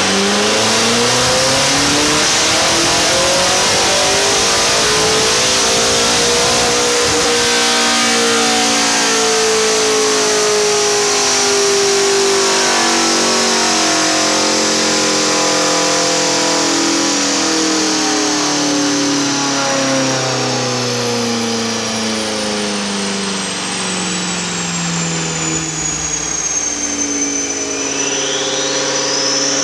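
BMW M5's twin-turbo V8, Stage 2 tuned and breathing through an aftermarket Tachys exhaust, running under load on a chassis dyno. Its revs climb for about seven seconds, then fall slowly for most of the rest and rise again near the end, with a high whine that falls along with them.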